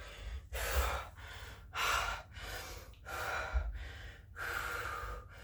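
A man breathing hard and gasping, out of breath just after finishing a hard round of burpees, with about one heavy breath a second.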